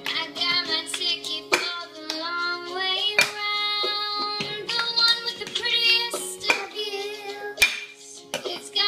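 A child singing while a plastic cup is slapped and tapped on a granite countertop and hands clap in a steady cup-game rhythm.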